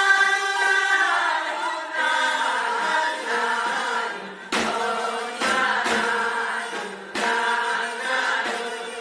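A group of women singing Seoul japga folk song in unison, with long, wavering held notes. Four sharp drum strokes fall in the second half.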